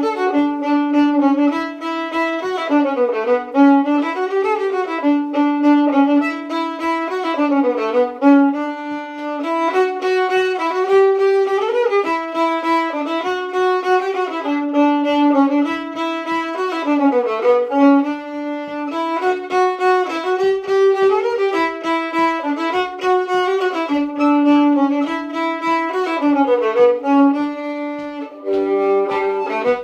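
Solo fiddle playing a traditional dance tune, with a steady low drone note held on a neighbouring string under the moving melody.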